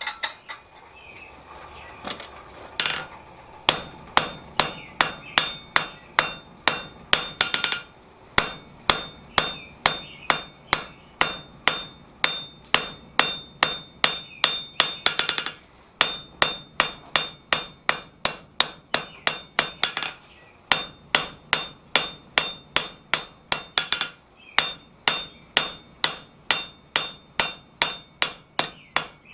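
Hand hammer striking hot steel on an anvil: a quick, even run of ringing blows, about two to three a second, starting a few seconds in and broken by short pauses every few seconds. The ball end of a dinner-bell clanger is being forged back to round.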